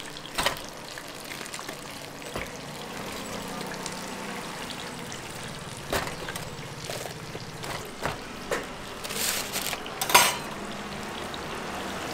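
Dough breads deep-frying in hot oil with a steady sizzle. Metal tongs clack against a stainless steel wire draining rack several times as fried breads are set down, the loudest knock about ten seconds in. A paper bag crinkles near the end.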